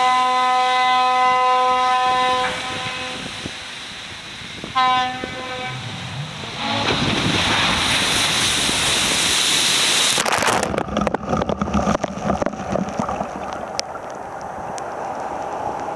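A ship's horn sounding one long steady blast that stops about two and a half seconds in, then a short blast near five seconds. Then a rushing wash of water as the side-launched cargo ship's wave crosses the canal, breaking over the bank in uneven splashes and crackles from about ten seconds in.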